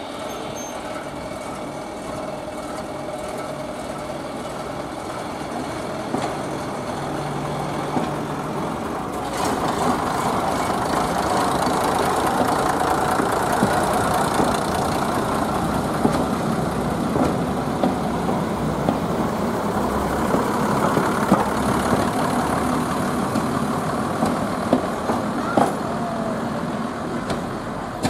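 Underfloor diesel engines of a two-car first-generation British Rail diesel multiple unit running as the train pulls away and passes close by. The sound grows markedly louder about nine seconds in. A few sharp clicks come in the second half.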